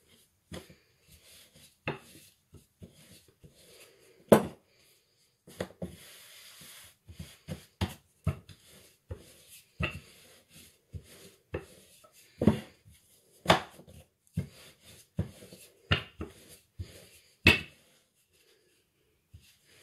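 Wooden rolling pin rolling out a sheet of semolina dough on a floured wooden countertop: irregular knocks and thuds as the pin and dough hit the board, with quieter rubbing between them.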